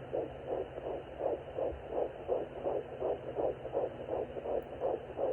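Handheld fetal Doppler monitor playing a 10-week fetus's heartbeat: a fast, even whooshing pulse, about three beats a second, over a faint steady hum.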